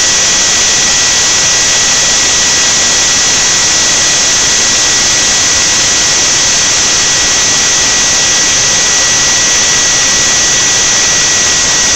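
CNC router spindle motor running at speed, a steady high whine over a loud hiss, as its end mill carves expanded polystyrene foam.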